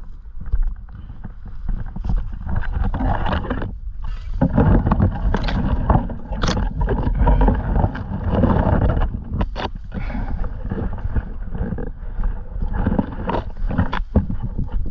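Wind buffeting the microphone in uneven gusts, with scattered clicks and rustles of brush.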